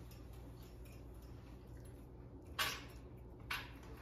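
Faint steady room hum with two brief hissy scrapes, about two and a half and three and a half seconds in, as salt is measured out with a metal tablespoon.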